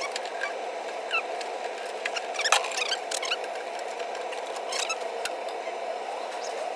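Hands working the wiring of a furnace control board: scattered small clicks, scrapes and short squeaks as wires and plastic plug connectors are handled, over a steady hum.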